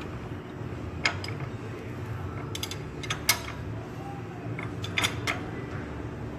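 Air-cooled VW engine being turned over by hand at the crankshaft pulley, counterclockwise, to bring the next cylinder up for valve adjustment: a handful of sharp metallic clicks from the turning engine, over a steady low hum.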